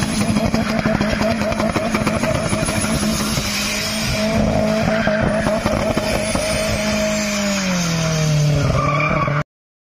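Car drifting in circles: engine held at high revs with the tyres squealing against the concrete, the engine note dropping in pitch over the last couple of seconds before the sound cuts off suddenly.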